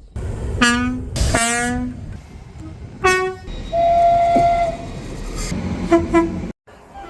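UK train horns sounding a series of short blasts: a lower horn note twice, a higher note a couple of seconds later, then a steady single-pitch tone for about a second, and more short toots near the end. A low rumble of the train runs underneath, and the sound cuts off abruptly near the end.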